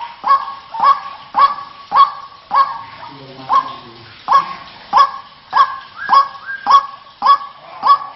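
White-breasted waterhen (ruak-ruak) calling: a loud, harsh 'kruak' note repeated slightly less than twice a second, with a short break about three seconds in. This is a recorded lure call used to draw the birds in.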